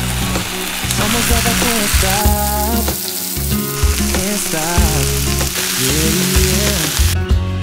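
Strips of bell pepper, carrot and mushroom sizzling in oil on a nonstick grill pan as they are stir-fried and turned with a spatula and chopsticks; the sizzle cuts off sharply near the end. A song with singing plays over it.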